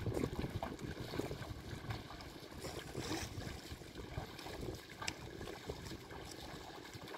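Bullocks and a levelling board working through a flooded paddy field: muddy water sloshing and splashing irregularly, a little louder in the first few seconds.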